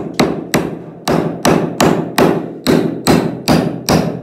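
Claw hammer driving a nail into a two-board wooden window header: a steady run of sharp strikes, about two and a half a second.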